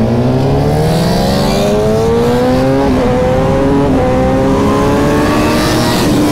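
Sport motorcycle engine pulling hard under acceleration, its pitch climbing steadily with brief breaks about three and four seconds in, over wind rush.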